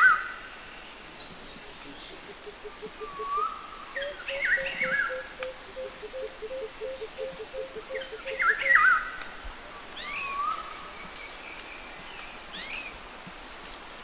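Several wild birds calling. Short whistled and slurred phrases recur every few seconds, there are sharp downward-sliding notes near the end, and a fast run of low, evenly spaced notes, about four or five a second, goes on from about two to seven seconds in.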